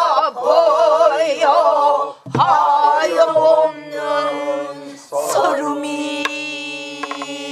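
Pansori singing in a slow, melismatic line, with wide vibrato, long held notes and several fresh vocal onsets. A few sharp knocks of the buk drum's stick fall among the notes.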